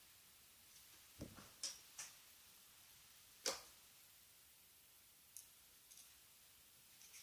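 Scattered light clicks and taps of small plastic parts, about seven in all, the loudest about three and a half seconds in, as the plastic case of a Jaguar car-alarm key fob is handled and fitted together.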